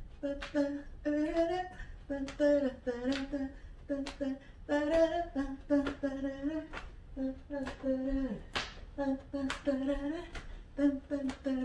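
A woman humming a rhythmic tune in short held notes with brief gaps between them, with a few sharp taps here and there.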